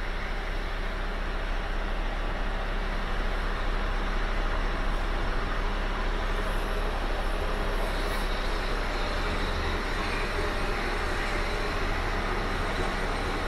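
Scania R560's 560 bhp V8 turbo diesel idling steadily, heard from inside the truck's cab.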